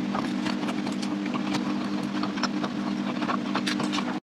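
A steady low machine hum with many small clicks and crackles scattered over it; the sound cuts out for a moment near the end.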